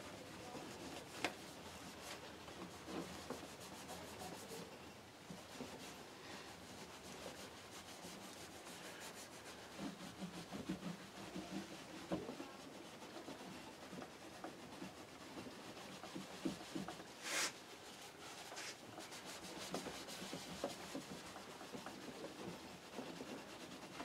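Cloth rubbing along an acoustic guitar's fingerboard, wiping fretboard oil in and off: faint, uneven rubbing with a few light knocks, the sharpest about two-thirds of the way through.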